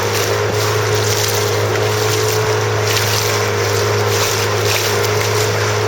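A steady motor hum holding one pitch, over a constant rushing noise.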